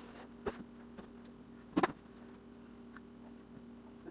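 A few short knocks and scrapes of a hand drywall tool worked against the drywall, the loudest about two seconds in, over a steady low hum.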